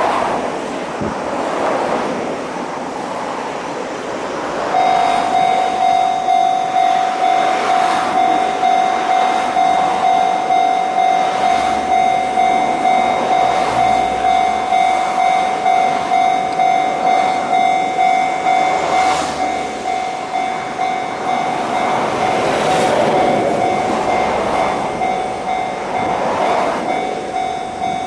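Sanko-sha electronic level-crossing warning bell starting about five seconds in and ringing steadily, about one and a half strikes a second, over a rush of wind noise on the microphone.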